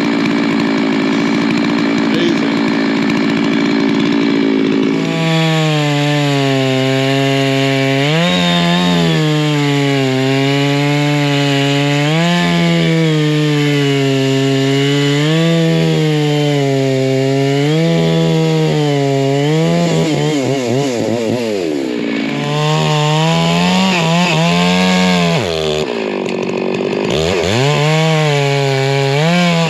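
Stihl chainsaw cutting through firewood logs. Its engine pitch sags and recovers about every two seconds as the chain bites. It drops sharply and revs back up twice near the end.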